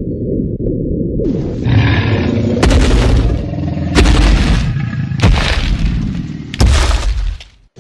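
Cinematic sound-effects track: a muffled low rumble, then a series of heavy boom-and-crash hits, one about every second and a half, each trailing off in a noisy rush.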